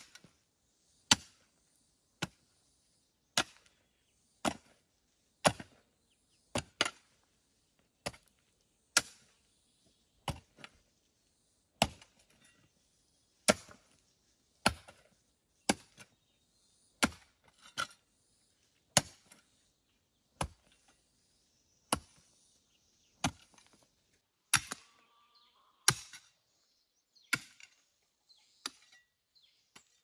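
A hoe chopping into dry soil, one sharp strike roughly every second in a steady working rhythm.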